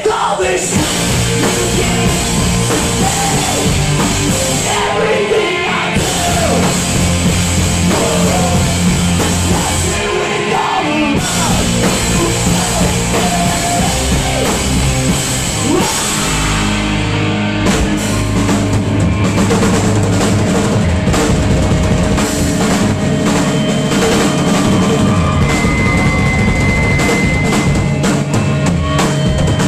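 Live punk rock band playing loud: electric guitars, bass and a drum kit, with shouted vocals over the band through the first half. From a little past halfway the drums come to the fore as dense, even hits.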